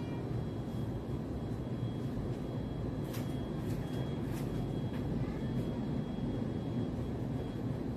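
Steady low background rumble, with a few faint light taps a little after three seconds in and again near four and a half seconds.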